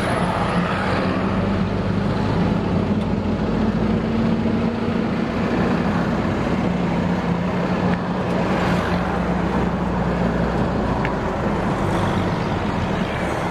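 Car engine running and road noise heard from inside a moving taxi, a steady low hum.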